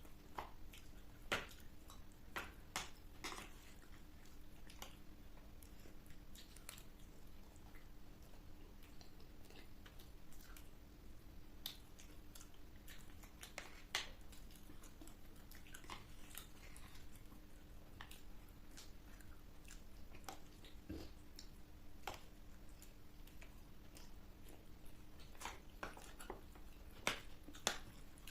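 A person chewing and biting into crisp street food, with irregular sharp crunches and wet mouth sounds, over a faint steady low hum.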